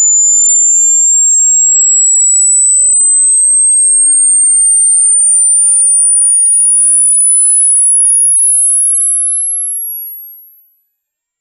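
A single pure, very high-pitched electronic tone, a simulated tinnitus ringing. It climbs slowly and evenly in pitch in small steps, then fades out near the end.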